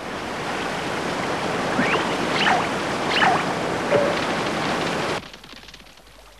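Rushing water of a waterfall over rocks, a steady noise, with three short falling whistles about two to three seconds in; the water sound cuts off abruptly about five seconds in.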